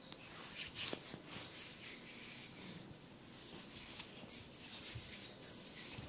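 Soft, repeated scratching and rubbing strokes on hair and scalp during a head massage, about two a second.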